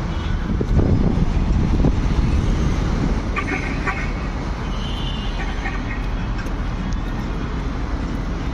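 Steady road traffic running past, with short car-horn toots a few seconds in.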